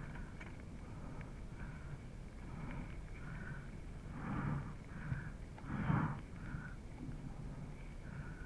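A mountain biker breathing hard, a string of audible puffs with two louder exhales in the middle, over a low steady rumble of riding noise.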